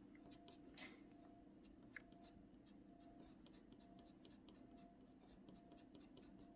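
Faint, quick scratches of a scratching tool on an Ampersand clay scratchboard: short little strokes repeated a few times a second.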